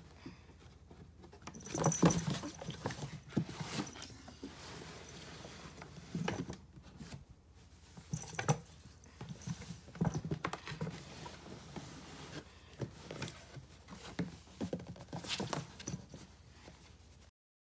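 A kitten moving about, its paws making irregular light pattering and scuffling sounds, with a louder scuffle about two seconds in.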